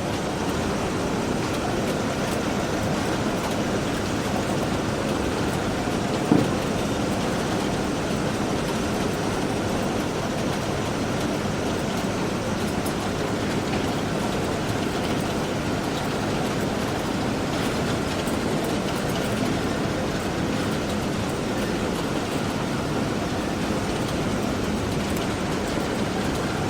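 Automatic postal letter-sorting machine running with a steady, even mechanical noise, and a single sharper knock about six seconds in.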